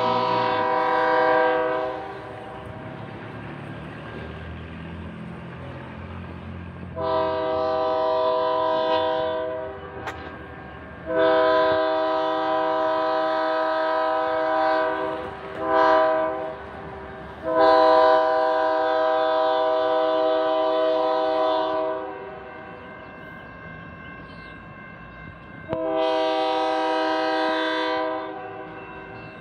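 Diesel locomotive air horn sounding a chord of several tones in the grade-crossing pattern: long, long, short, long, followed by the start of another long blast. It is heard as the train approaches, with a low diesel engine rumble underneath between the blasts.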